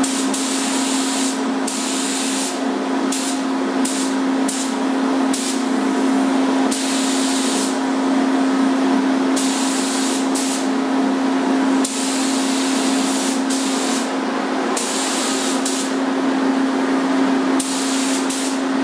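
Gravity-feed paint spray gun hissing in repeated on-and-off bursts as the trigger is pulled for each pass, spraying paint onto metal trim moldings. A steady low hum runs underneath.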